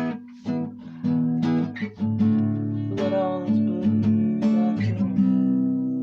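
Acoustic guitar strumming chords at a steady pace, about two strokes a second.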